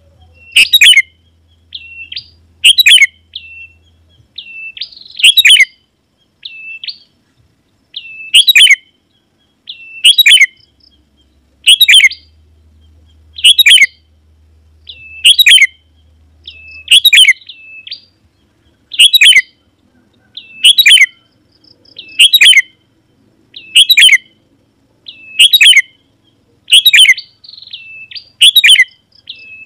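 Sooty-headed bulbul (kutilang) calling over and over, a loud sharp call every second and a half to two seconds, each followed by a few short whistled notes.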